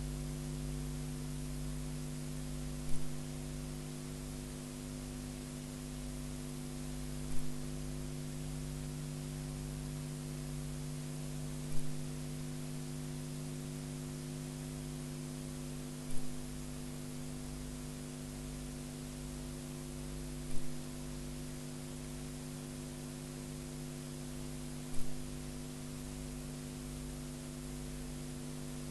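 Steady electrical mains hum with a hiss, and six brief loud clicks at even spacing, about every four and a half seconds.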